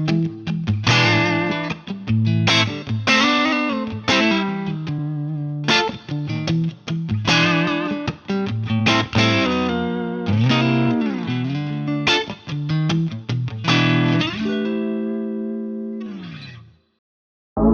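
Clean electric guitar playing strummed chords and short melodic phrases, some notes bending and wavering in pitch. The last chord rings out and fades, then a brief silence, and a sustained synth pad chord comes in right at the end.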